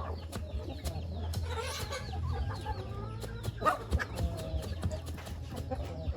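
Chickens clucking, with many sharp knocks scattered throughout, the loudest a little past halfway.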